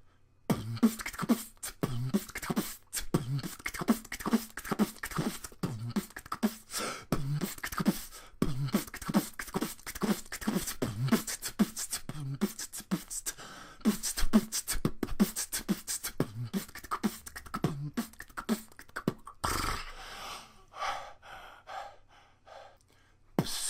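Beatboxing: a rhythmic run of vocal kick-drum thumps and sharp snare and hi-hat clicks, which drops away to a quieter stretch about twenty seconds in.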